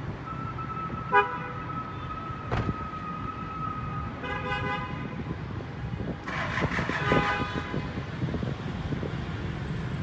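Vehicle horns honking in street traffic: a short toot about a second in, one long steady horn note over the first four seconds, more toots a little later and a louder burst of honking around the middle, over a steady traffic hum.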